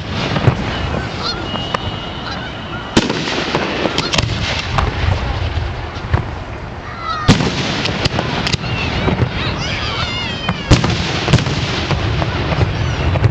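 Aerial fireworks shells launching and bursting with sharp bangs every few seconds, over a steady crowd rumble. A high steady whistle comes a couple of seconds in, and wavering high whistles or calls come in the second half.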